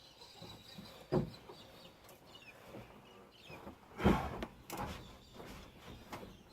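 Stones knocking and scraping as they are handled and set down, in a few separate strokes, the loudest about four seconds in. Faint bird chirps.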